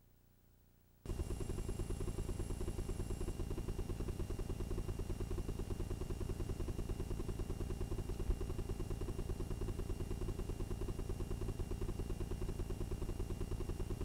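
Playback noise from a blank stretch of videotape: a steady low buzz with a fast flutter and faint high-pitched whines, starting abruptly about a second in.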